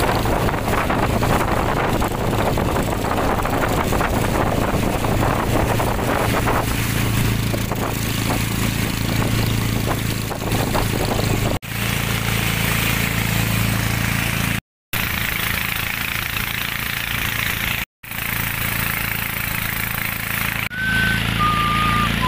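An engine running steadily with a low hum, broken by several abrupt cuts. Near the end come a few short high notes, each at a different pitch.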